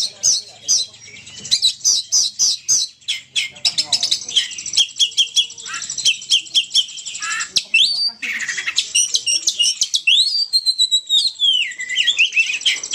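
Lure-call recording of the bird called 'burung poci', made to draw the birds in: rapid high chirps, quick runs of repeated notes and rising and falling whistled sweeps, one after another.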